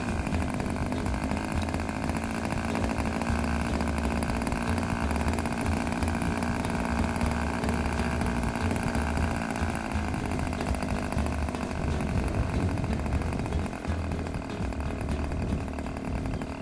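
OS Max 46 AX two-stroke glow engine of a model airplane running steadily on the ground.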